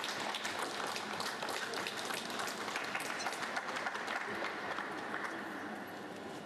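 Audience applauding, a dense patter of clapping that thins out and fades about five and a half seconds in.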